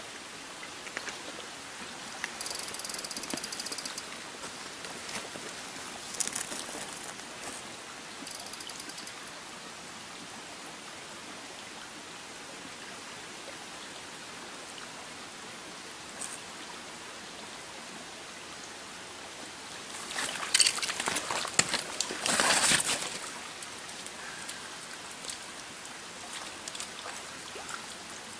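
Small mountain brook running over rocks: a steady, even rush of water. A few short, sharper bursts of noise break in, the loudest and longest about two-thirds of the way through.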